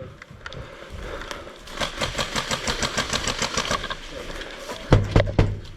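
Airsoft electric gun firing a full-auto burst: a fast, even rattle of shots, about ten a second, lasting about two seconds. A few heavy thumps follow near the end.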